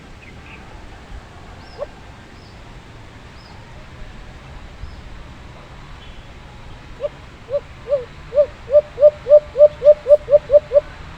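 Alimokon dove calling: a run of about a dozen low hooting coos that start spaced out and speed up, growing louder, then stop. Faint high bird chirps come earlier.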